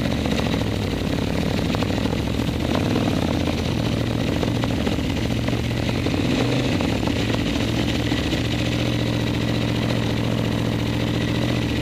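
Motorcycle engines running at low speed and idling, a steady low engine note with small shifts in pitch as the bikes roll slowly and stop.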